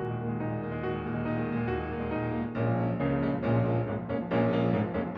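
Recorded chamber music for piccolo and piano, with the piano prominent and sustained high melody notes above it. A fuller, louder passage comes in about two and a half seconds in.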